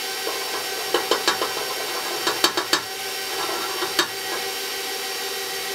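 Stand mixer running steadily on low speed, its motor humming as the beater turns through the batter while dry mix is poured in. Several sharp clicks and taps come about a second in, again around two and a half seconds, and once near four seconds.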